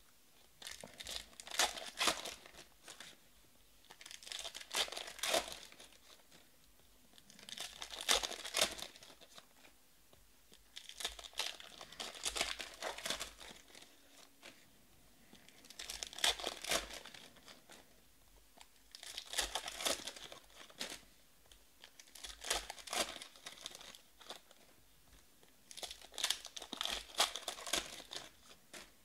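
Foil wrappers of 2020 Panini Prizm Draft football card packs being torn open one after another: a crinkling rip about every three to four seconds, eight in all.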